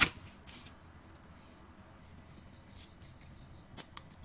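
A sharp click right at the start, then a few small sharp clicks near the end as a ThinkPad Yoga 260 keycap is pried off its plastic retainer clips with a thin metal pick.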